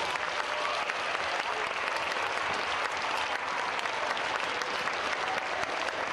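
Large audience applauding: many hands clapping in a dense, steady round.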